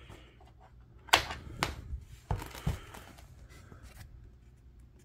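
Hand handling a charger plug and cable at an electric skateboard's battery pack: a few sharp clicks and knocks, two about a second in and two more a second later, with some rustling between them.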